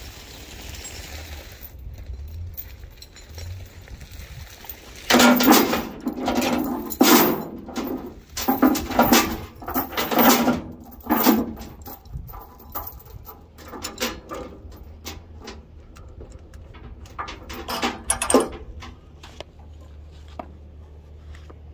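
Steel tie-down chain rattling and clanking as it is handled and hooked between the trailer and the truck. The loud, uneven clanks start about five seconds in and die away near the end.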